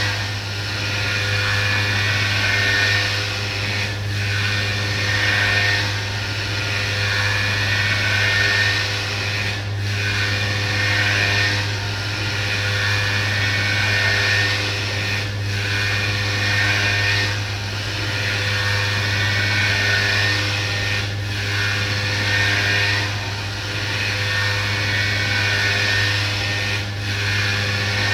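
CNC orthopedic milling machine running steadily, milling a prosthetic: a constant low hum under a hissing cutting sound that dips briefly every few seconds.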